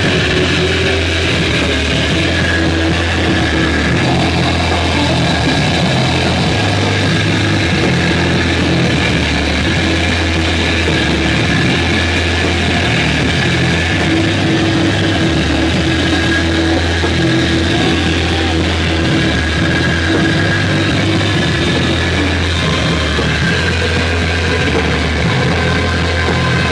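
Live band playing loud, heavily distorted rock: a dense, unbroken wall of electric guitar noise over sustained low notes and drums.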